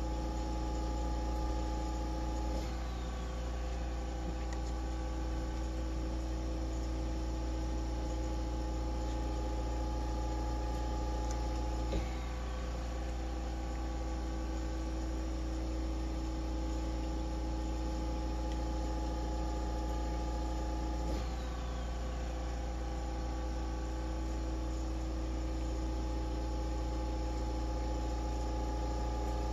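Steady electrical hum made of a few steady tones. It shifts slightly with a faint click about every nine seconds.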